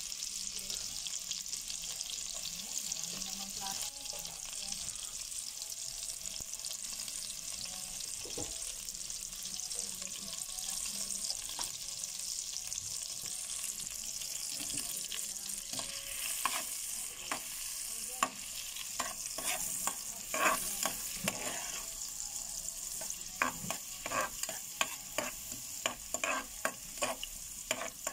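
Minced garlic sizzling steadily in melted butter in a stainless steel pot. From about halfway through, a spoon stirs and scrapes against the pot, with quick repeated clinks near the end.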